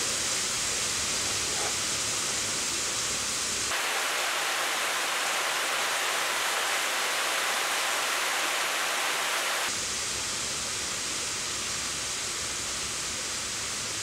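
Heavy rain pouring down, a steady dense hiss. Between about 4 and 10 seconds in it turns brighter with less low rumble: rain splashing onto a plastic dust-bath tray, a water dish and a wooden table close by.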